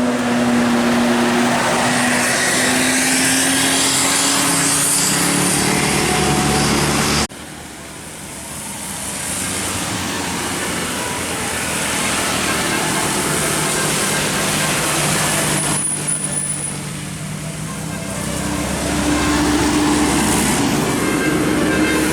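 Roadside traffic noise with a heavy vehicle's engine droning past. The sound cuts off abruptly about seven seconds in, then the traffic noise swells again.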